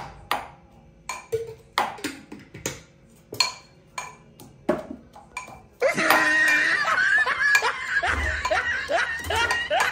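Garlic being pounded with a pestle in a mortar: uneven, sharp knocks with a slight ring, about one or two a second. About six seconds in, loud laughter and excited voices take over.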